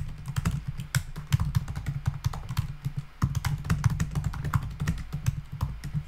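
Typing on a computer keyboard: quick runs of keystrokes, with a brief pause about halfway through.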